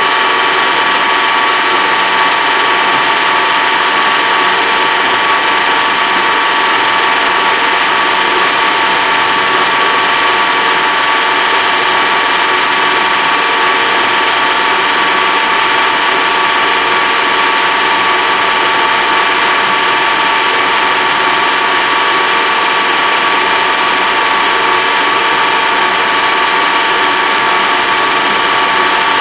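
Tractor driving at steady road speed, heard from inside the cab: constant engine and drivetrain noise with a steady high gear whine.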